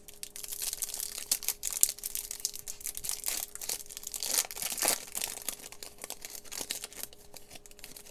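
Foil wrapper of a Topps Garbage Pail Kids trading-card pack being crinkled and torn open by hand, a dense run of crackles with the loudest rips about two seconds in and again around five seconds.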